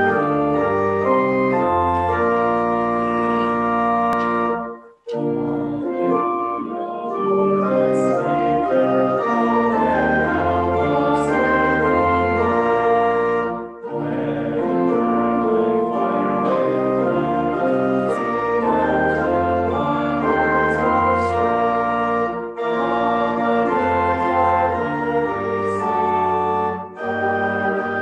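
Organ music: slow, held chords played in phrases, with short breaks about five, fourteen, twenty-two and twenty-seven seconds in.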